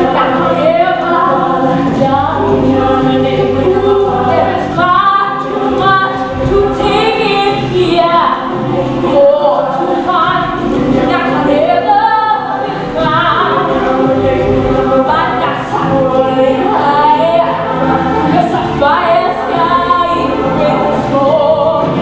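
A large youth ensemble singing together as a chorus, a musical-theatre number.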